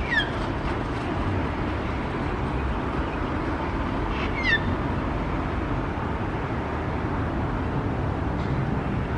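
Sulphur-crested cockatoo giving two short, soft calls that fall in pitch, one at the start and one about four and a half seconds in, over the steady rumble of city traffic.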